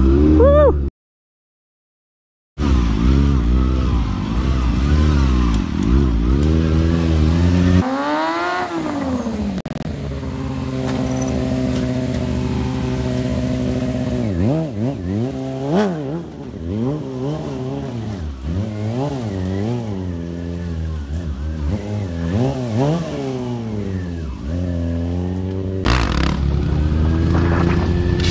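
Motorcycle engines revving up and down again and again during stunt riding, mainly the Kawasaki Ninja 636 sport bike; near the end a different bike, a supermoto, takes over. A sudden gap of silence comes about a second in.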